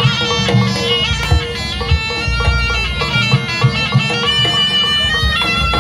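Live jaran kepang (kuda lumping) ensemble music: a shrill reed trumpet plays a shifting melody over irregular drum strokes.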